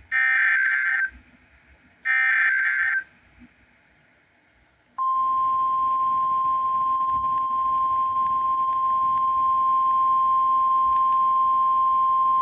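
NOAA Weather Radio Emergency Alert System signal for a severe thunderstorm warning. First come the last two of the SAME digital header bursts, each about a second of shrill data screech, one second apart. After a pause of about two seconds, the steady 1050 Hz warning alarm tone comes on and holds.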